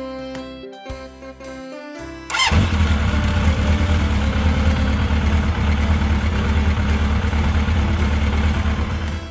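Light background music, then about two seconds in a motorcycle engine sound effect starts and runs steadily and loudly with a deep rumble, cutting off just before the end.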